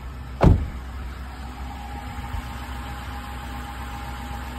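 2012 Toyota minivan's engine idling steadily, with one loud thump about half a second in. A thin steady tone comes in about a second in and holds over the idle.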